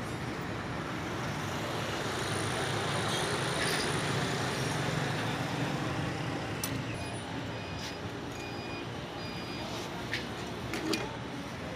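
Steady road-traffic noise. Partway through comes a run of about four short electronic beeps, and near the end a few sharp clicks.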